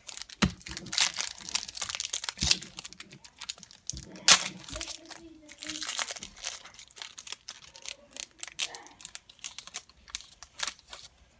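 A trading-card pack's wrapper crinkling and tearing as it is opened, with the cards handled in short, sharp crackles and clicks; the sharpest crackle comes about four seconds in.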